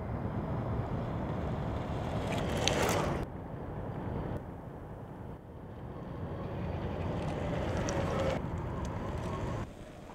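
2011 Zero S electric motorcycle riding and accelerating: its electric motor whine rises in pitch twice over a steady rush of wind and tyre noise. The sound changes abruptly several times, as in short spliced passes.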